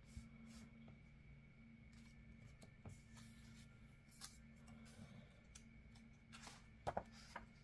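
Near silence with faint paper rustles and soft taps as paper stickers and sticker-book pages are handled, a couple of slightly louder rustles near the end, over a low steady hum.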